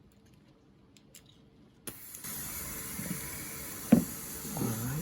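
Compressed air hissing steadily from a leak-down tester pressurising a cylinder of the 1968 Corvette's V8 engine. The hiss starts suddenly about two seconds in, and there is a sharp click about four seconds in.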